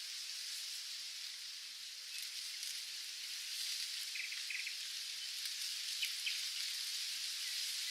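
Steady hiss of falling rain, with a few faint short chirps about four and six seconds in.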